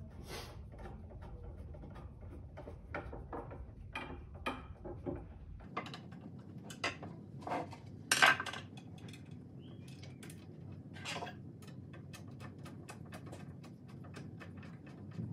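Scattered clicks and light metal clinks from handling metal tubes, wooden cross bars and a screwdriver on a tabletop, with one louder clank about eight seconds in.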